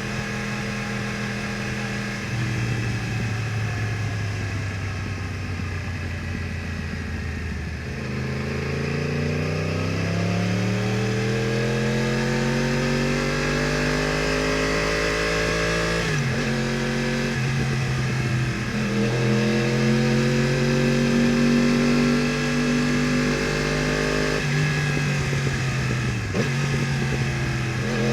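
Yamaha R1 crossplane inline-four with an Akrapovič exhaust, pulling hard under acceleration. Its note climbs steadily, then drops sharply at gear changes several times.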